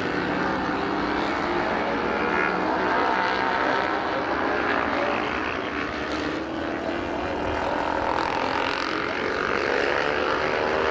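Road-racing motorcycle engines running hard on track, several bikes at once, their pitch rising and falling as they accelerate and back off.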